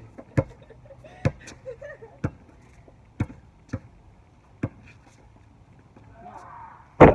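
Scattered sharp taps and knocks close to a phone lying on the pavement, about one every half second to second, then a loud knock and rubbing near the end as the phone is picked up.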